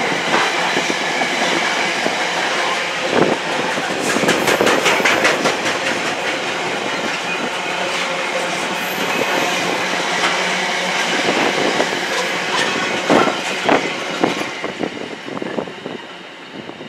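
Container freight train's flat wagons rolling past, their wheels running with a steady rumble and runs of clicks over the rail joints. The sound fades as the last wagon goes by near the end.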